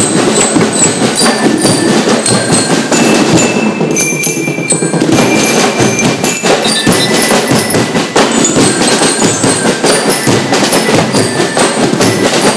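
Drum and lyre corps playing: bell lyres ring out a tune over a busy, steady beat of marching drums.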